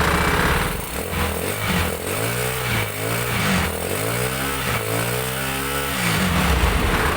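Jialing 200cc engine in a three-wheeled cargo motorcycle running, at first steadily, then blipped up and down about four times, the pitch rising and falling with each rev, before settling back to a steady run.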